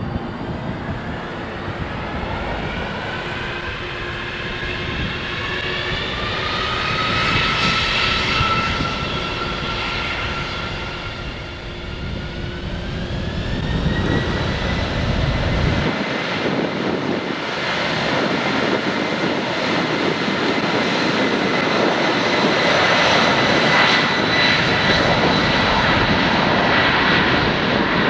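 The four Pratt & Whitney PW4062A turbofans of a Boeing 747-400 freighter spooling up to takeoff power. A whine rises in pitch over about ten seconds, then holds steady over a deep rushing noise that grows louder near the end.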